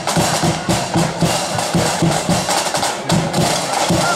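Blood-and-thunder flute band playing on the march: snare drums and a bass drum beat a loud, brisk, steady march rhythm under the flutes.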